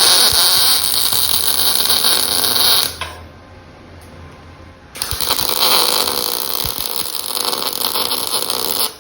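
Two long bursts of loud hissing noise, the first about three seconds and the second about four, with a quieter gap between them.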